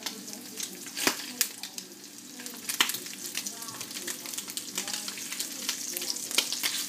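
Sliced sausages frying in very hot oil in a stainless steel pan, sizzling steadily with many sharp spattering pops, like popping popcorn. The oil is hot enough to spit out of the pan.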